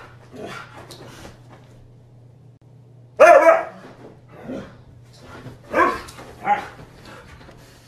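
Husky barking in short bursts. There are fainter calls at first, then three loud barks from about three seconds in.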